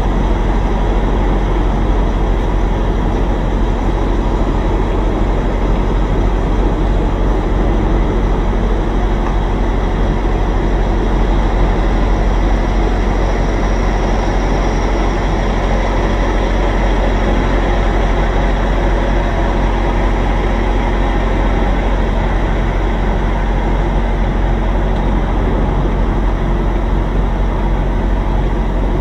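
Semi truck's diesel engine running steadily at low speed, heard from inside the cab as a constant low drone while the rig backs slowly.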